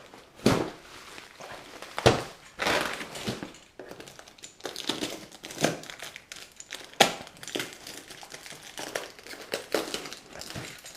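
Packing material being handled and pulled from a box, crinkling and rustling in irregular bursts with a few sharper crackles.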